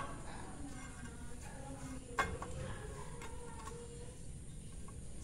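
Outboard motor gearcase being handled during reassembly: a quiet stretch with one sharp knock about two seconds in.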